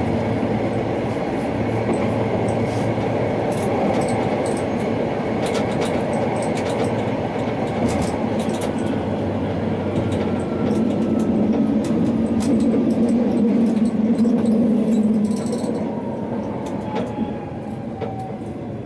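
Electric tram running on its rails, a steady wheel rumble with scattered clicks from the track. In the second half a thin electric whine falls slowly in pitch and the sound dies down as the tram slows for a stop.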